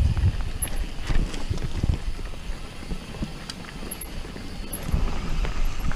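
Mountain bike descending a dirt forest trail: a steady rumble of tyres on dirt and wind buffeting the microphone, with the bike rattling and knocking over roots and rocks.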